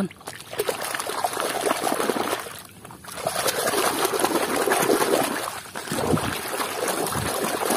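Water sloshing and splashing as hands swish muddy toy cars back and forth in shallow water to rinse the mud off, with a short lull about three seconds in.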